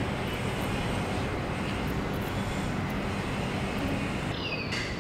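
Steady low rumble and hiss of vehicle or traffic noise, with a few short, high, falling chirps near the end.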